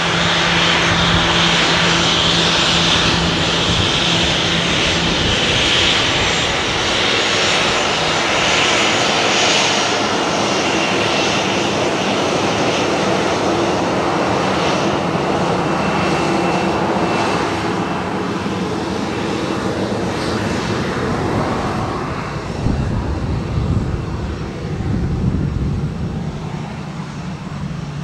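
Boeing 737-800's CFM56-7B turbofan engines running as the jet taxis past: a steady rush with a thin high whine, slowly easing in the second half, with some uneven low rumble near the end.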